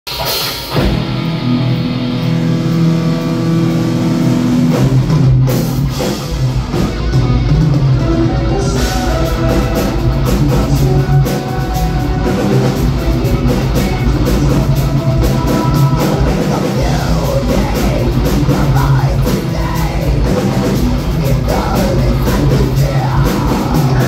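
Progressive metal band playing live in a club, heard from the crowd. Held guitar chords open the passage, and the full drum kit comes in about eight or nine seconds in, with dense, fast drumming under the guitars from then on.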